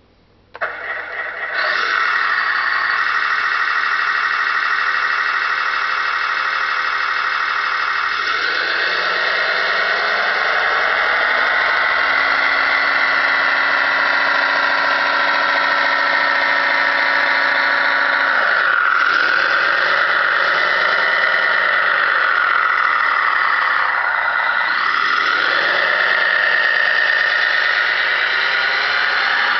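Simulated diesel engine sound from the RC track loader's ServoNaut SMT sound module, played through its small speaker. It starts up abruptly about half a second in, settles into a steady running note, then rises and dips in pitch several times as the loader is driven and works its bucket.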